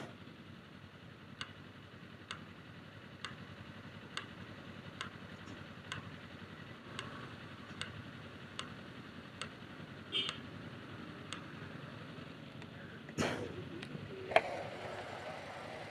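Motorcycle in stop-and-go traffic: a low steady hum of idling engines, with a sharp tick repeating about once a second. Near the end come two or three louder short bursts of noise.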